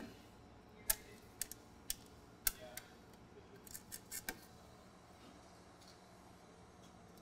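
Sharp clicks and light metallic taps as the brass valve fittings of an Uponor AquaPort are handled and fitted by hand, a dozen or so scattered through the first four seconds or so.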